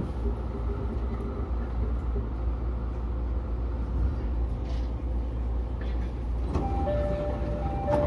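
E231-series electric train running on the track, heard from the driver's cab: a steady low rumble. Near the end a two-tone ringing starts over it.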